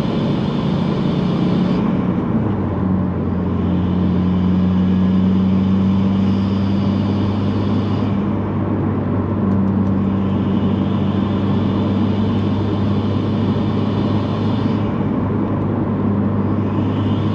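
2018 Subaru WRX's turbocharged 2.0 L flat-four, fitted with a GrimmSpeed cast aluminum turbo inlet, running steadily in normal driving. The engine drone drops in pitch about two seconds in and then holds steady, with a hiss above it that fades and returns a few times.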